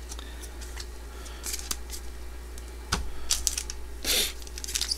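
Yu-Gi-Oh trading cards and foil booster packs being handled on a table: light taps and clicks as cards are set down, a sharper click about three seconds in, and a short crinkle of pack wrapper about four seconds in.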